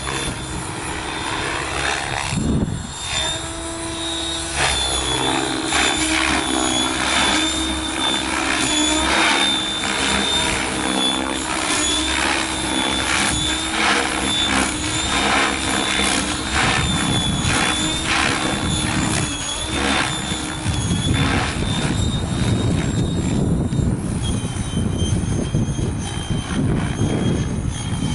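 Mikado Logo 600 SE electric RC helicopter in aerobatic flight: a steady high whine that wavers slightly in pitch and steps up near the end, over rotor-blade whooshes that swell and fade in quick pulses as the helicopter manoeuvres.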